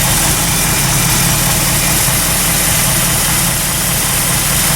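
Ford 351 Cleveland V8 in a rebuilt truck idling steadily, still warming up after a cold start following a long lay-up.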